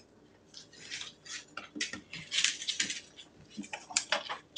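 Light metallic jingling and clicking in irregular bursts, some short and some lasting about half a second, as a dog gets up from lying down and moves about on a hard floor: its collar tags jangling and its claws ticking on the floor.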